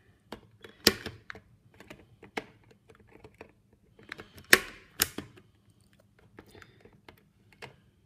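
Punch-down tool clicking as it forces Cat5 conductors into a faceplate's insulation-displacement terminals and its cutter trims the wire ends: a handful of sharp clicks with light ticks of handling between, the two loudest about half a second apart near the middle.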